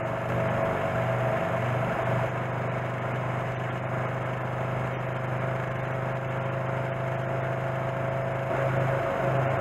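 Engine of a 1928 Norton motorcycle with a J.A.P. engine running steadily at road speed, with a rush of wind on the helmet-mounted microphone. The engine pitch shifts slightly about a second in and again near the end.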